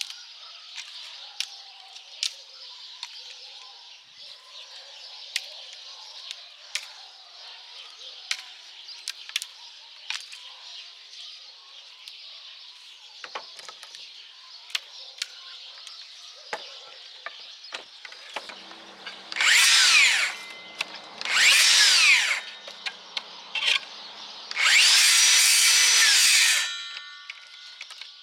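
Dry branches being handled, with sharp clicks of twigs knocking and snapping. Then, about two-thirds in, a DeWalt DCS578 60V FlexVolt cordless circular saw runs three times in short bursts, about one, one and two seconds long, each whining up to speed and winding back down fast under the blade brake, cutting thin tree branches.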